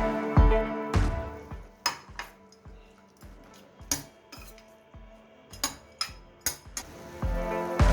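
A metal utensil clinking against a cooking pan: a scattering of sharp, irregular clinks. Background music with a steady beat plays at the start, drops away during the clinks, and comes back near the end.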